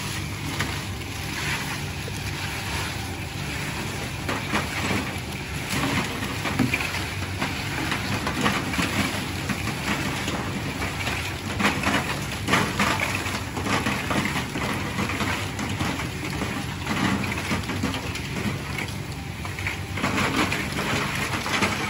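Sand-fried crackers (kerupuk pasir) scraping and rattling in hot sand inside a metal frying drum as they are stirred with a metal rod and scooped out, over a steady low hum.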